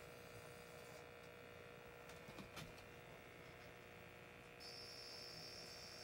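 Near silence: faint electrical hum and hiss, with a couple of faint clicks about halfway and a faint high-pitched whine coming in near the end.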